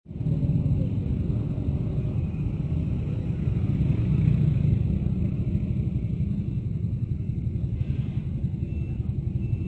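Steady low rumble of passing road traffic, a little louder around the middle.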